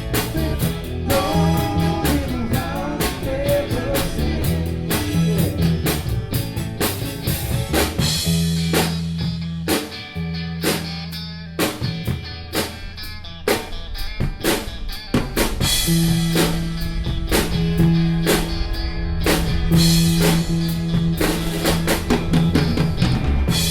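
Live rock band playing an instrumental passage: drum kit keeping a steady beat under bass and guitar, with a wavering guitar line near the start.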